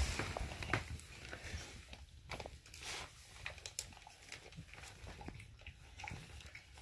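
Boxer dog licking: faint, irregular wet licking clicks at close range.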